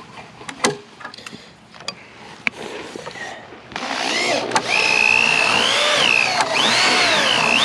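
A few sharp knocks, then a power drill starts a little under halfway in and bores into wood. Its whine rises and falls as the speed changes. The hole is being widened to give a wheel bolt more room.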